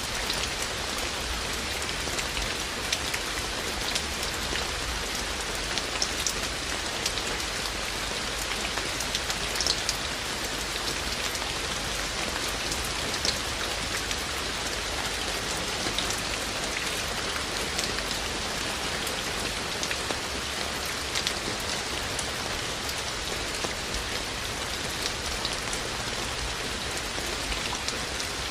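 Steady rain falling, an even hiss with frequent sharp drips and drops striking surfaces close by.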